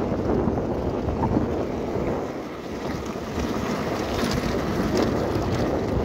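Wind buffeting the camera's microphone: a gusty low noise that eases briefly about two and a half seconds in.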